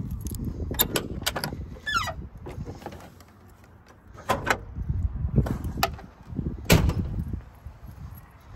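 A pickup truck door being opened and the hood release pulled inside the cab: a string of sharp latch and lever clicks and clunks, with low handling rumble between them. The loudest clunk comes near the end.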